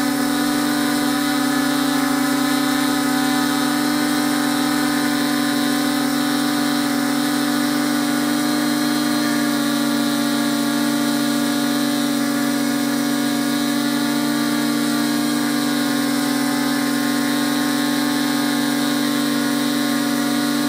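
Multirotor drone motors and propellers humming at a steady pitch while hovering or cruising.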